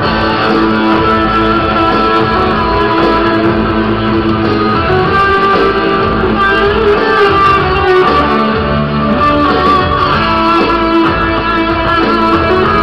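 Electric guitar played live on stage and amplified through the PA speakers: a continuous melodic line over accompaniment, with no breaks.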